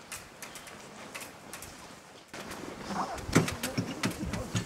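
Footsteps crunching in packed snow, then, from about halfway, louder knocks and clatter with one sharp bang and a brief vocal sound.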